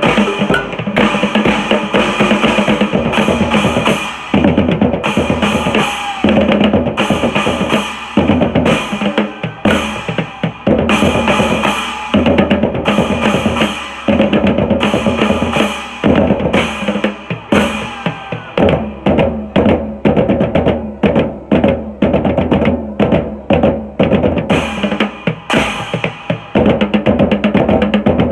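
Street drummers playing a fast, driving rhythm on trash-can drums, a galvanised metal can and black plastic bins, with cymbal crashes.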